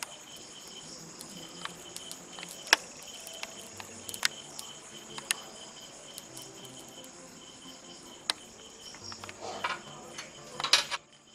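Crickets chirring steadily and high-pitched, with a few sharp single clicks and a short clatter of taps near the end, which cuts off suddenly.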